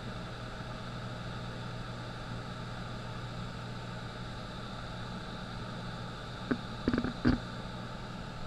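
Light aircraft's piston engine and propeller droning steadily, heard from inside the cabin. A few short knocks come close together near the end.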